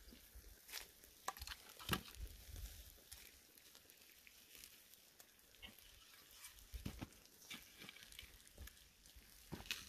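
Faint, scattered knocks and crunches of a split log being handled in a bed of hot coals and ash. The loudest knock comes about two seconds in, with a few more around seven seconds and near the end, over a faint high hiss.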